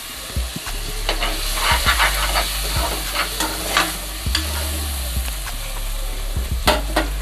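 Chopped tomatoes and onions sizzling as they fry in an aluminium pressure cooker, stirred with a steel ladle that scrapes and clinks against the pan several times, two sharp clinks near the end.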